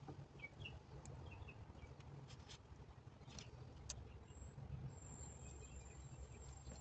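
Near silence: a low, faint background with a few light clicks and some faint high chirps.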